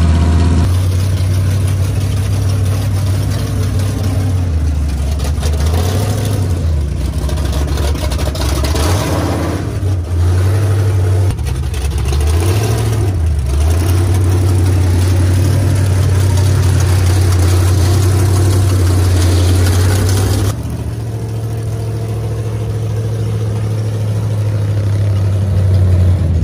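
Swamp buggy engine running loud and steady, its pitch dropping and climbing again twice as the throttle is eased and opened. Then an abrupt change to a steady, slightly quieter run.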